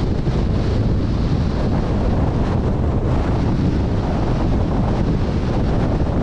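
Strong storm wind buffeting the camera's microphone: a loud, steady rumble.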